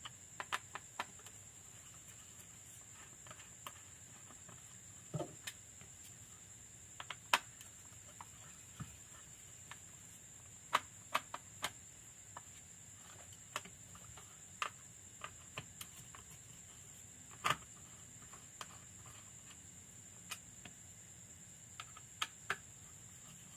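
Screwdriver working screws out of a plastic speedometer housing: irregular sharp clicks and small ticks as the screws turn and are set down on the workbench, over a faint steady high-pitched whine.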